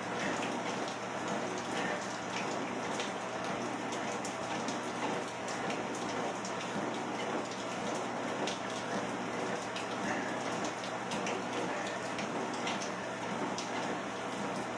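Steady rain falling, an even hiss with scattered drop ticks, over the low steady hum of a treadmill running.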